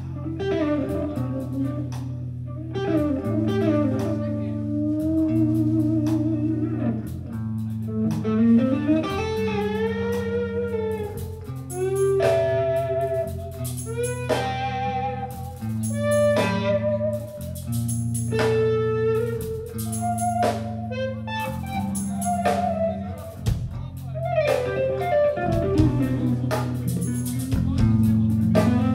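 Live rock band playing an instrumental passage: electric guitar leading with a melodic line full of bends and vibrato, over bass notes that change about once a second and drum-kit hits.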